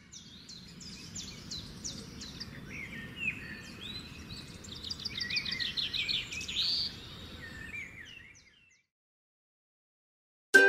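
Songbirds chirping over a soft, steady background noise, as a nature-ambience sound effect; it fades out after about eight seconds.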